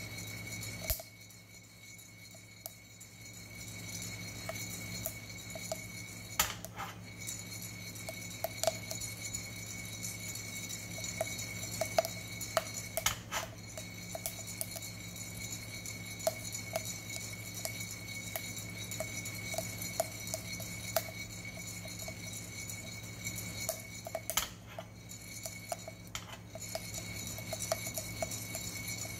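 Coffee beans rattling and clinking inside a handheld ceramic roaster as it is swirled over a gas burner, in the development stage of the roast. Small clicks come steadily, with a few sharper knocks now and then and a quieter spell near the start.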